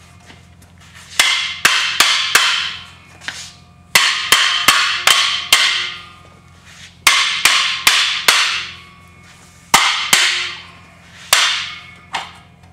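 Hammer blows on the steel brake backing plate of a Dana 30 front axle knuckle, knocking it loose. The strikes come in quick runs of two to five with short pauses between, each with a metallic ring.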